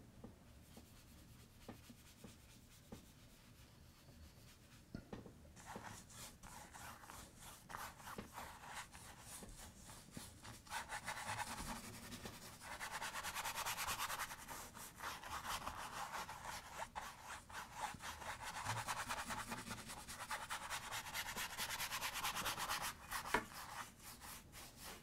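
Paintbrush scrubbing oil paint across a canvas in quick back-and-forth strokes. It starts about five seconds in and grows louder from about the middle.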